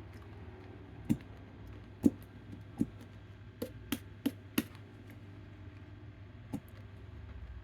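Light clicks and taps, about eight at irregular intervals, over a low steady hum: slime-making containers and utensils being handled and set down.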